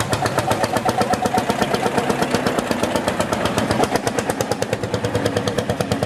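1938 Lanz Bulldog tractor's single-cylinder two-stroke hot-bulb engine running while the tractor drives, a fast, even, steady beat of firing strokes.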